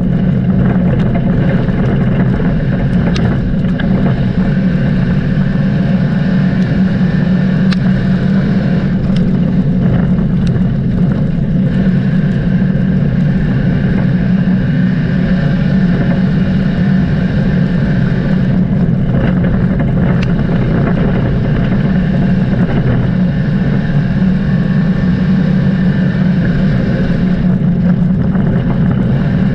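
Dirt track race car engines running continuously at racing speed, a loud steady drone that rises and falls slightly.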